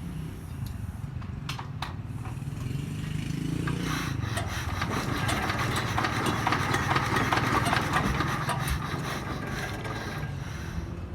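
Jiangfa D30 engine running, speeding up and getting louder around the middle and then easing back.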